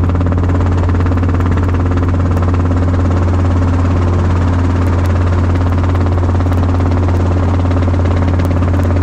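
Helicopter rotor and engine running in a steady drone, heard from inside the cabin with the doors off, during a slow descent on approach to land.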